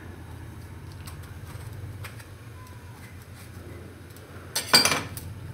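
Kitchen utensils clinking on a countertop as a tomato is cut with a knife over ceramic bowls and a steel plate: a few faint ticks, then a short loud clatter near the end, over a steady low hum.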